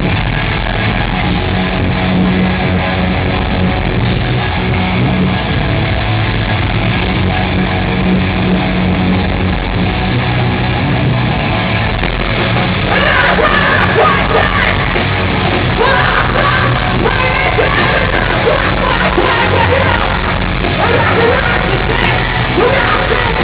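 A heavy rock band playing loud with distorted guitars and drums. Yelled vocals come in about halfway through and carry on over the music.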